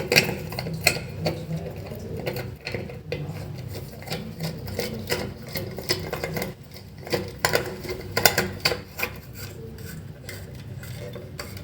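A screw being turned in and tightened by hand on a toilet flush tank fitting: a run of irregular small clicks and scrapes.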